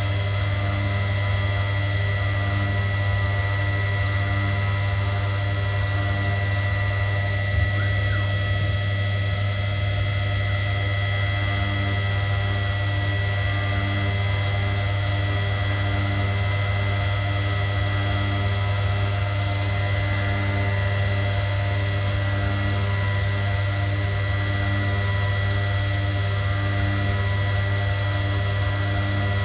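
CNC milling machine running a job: a steady loud hum with a constant high whine, and a lower tone that pulses on and off every second or two. A single click about eight seconds in.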